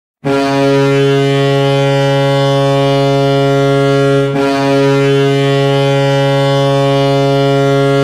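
Toronto Maple Leafs arena goal horn, a deep steady horn tone sounded in two long blasts of about four seconds each with a brief break between them, signalling a goal.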